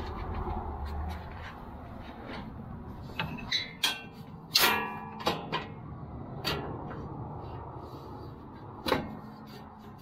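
Metal clanks and clicks from the spring latches of a bolt-on belly guard being hooked into place under a Kubota BX compact tractor. The loudest clank comes about four and a half seconds in and rings briefly.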